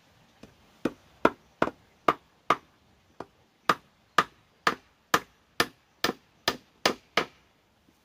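A hammer nailing a wooden board onto a small wooden table frame: a steady run of about fifteen sharp blows, about two a second, with a short pause near the middle.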